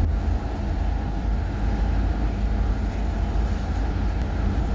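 Steady low road rumble and tyre noise of a car cruising on a highway, heard from inside the cabin.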